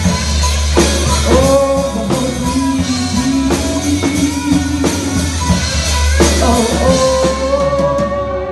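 A live rock band playing: drum kit, electric guitar and a singer, over a heavy bass, with long held notes that slide up into pitch.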